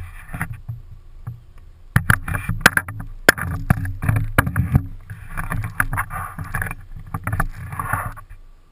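Handling noise from a camera being moved about: a run of irregular sharp knocks and clicks with bursts of rustling and a low rumble underneath.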